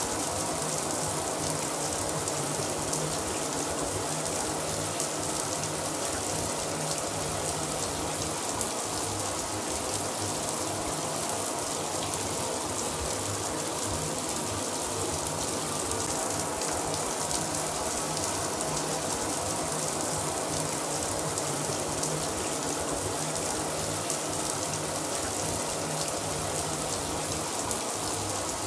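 Shower running steadily, water spraying from the head and splashing down with an even, unbroken hiss.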